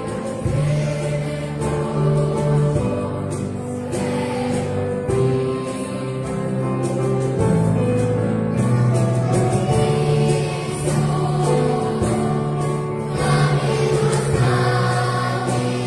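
Children's choir singing a worship song together, with band accompaniment including a steady bass line.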